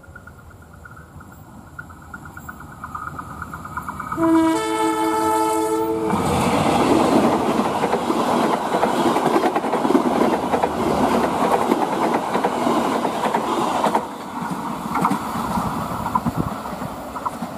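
Train approaching and passing at speed on a sharp curve: the locomotive horn sounds one chord for about two seconds, starting about four seconds in. Then comes a loud rush and clatter of wheels on the rails, which eases off a little near the end.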